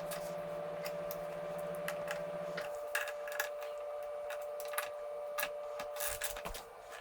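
Scattered light clicks and ticks of hands handling wiring and plastic fairing parts on a motorcycle, over a steady faint hum whose lower part stops a little under three seconds in.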